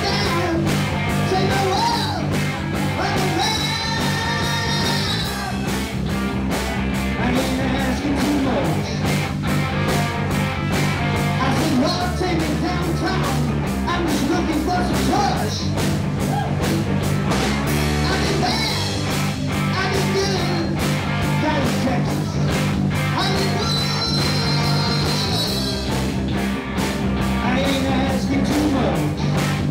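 Live rock band playing, with a male lead singer over electric guitars and bass guitar, driven by a steady beat.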